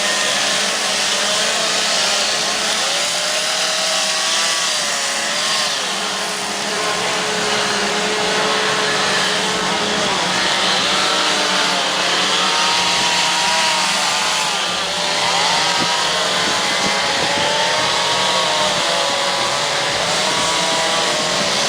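Several chainsaws running at once during wood carving, their engine pitches rising and falling as the saws are throttled up and eased off in the cut.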